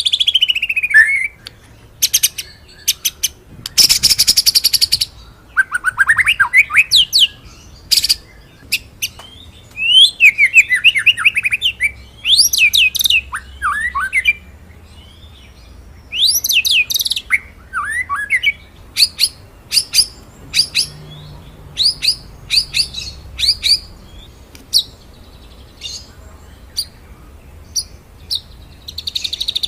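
White-rumped shama (murai batu) singing a loud, varied song: a falling whistle, a rapid rolling trill, quick rising and falling phrases, and runs of short, sharp, piercing notes with brief pauses between.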